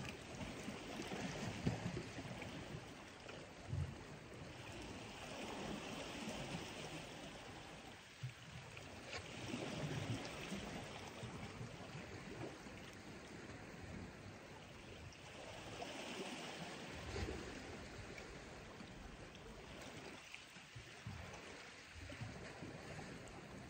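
Small waves lapping and sloshing against shoreline rocks, swelling and fading every few seconds, with a few faint knocks.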